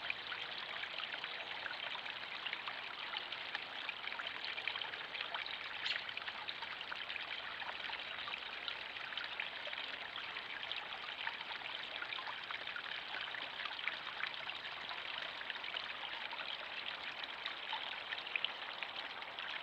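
Running water trickling and splashing steadily in a backyard pond, a dense patter of small drips and splashes. There is one sharper click about six seconds in.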